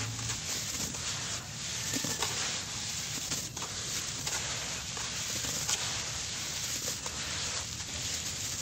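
Hands crumbling and squeezing damp sand-and-cement mix: a steady gritty crunching with many small crackles and the patter of falling clumps.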